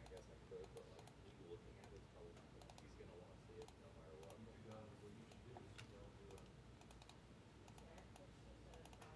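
Faint, irregular clicking and tapping of typing on a computer keyboard.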